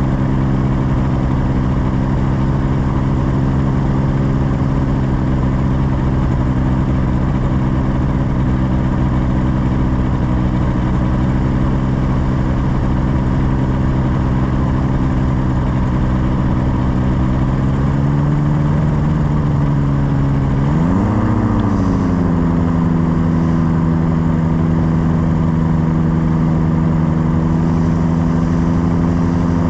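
Tandem paramotor trike's engine and propeller running steadily in flight. About two-thirds of the way through, the engine note rises and falls quickly, then holds steady at a slightly different note as the throttle is changed.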